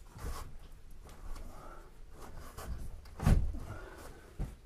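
A window being handled and pushed shut: a few knocks and bumps of the sash against its frame, the loudest about three seconds in, with light scraping between them.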